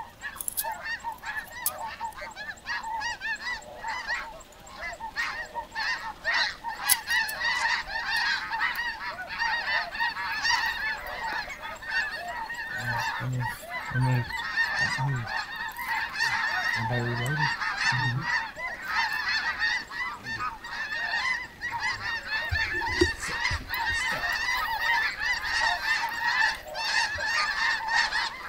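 A huge flock of snow geese calling overhead: a dense, unbroken chorus of high-pitched honks, hundreds of birds at once.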